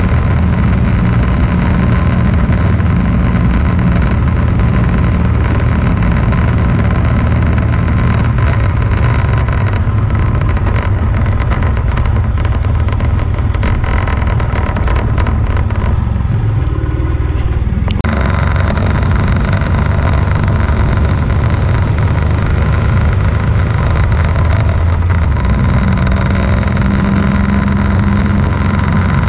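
Vehicle engine running steadily at road speed, with constant wind and tyre noise on an onboard camera. The engine hum shifts a little in pitch along the way, and the hiss above it drops away briefly about two-thirds of the way in before returning suddenly.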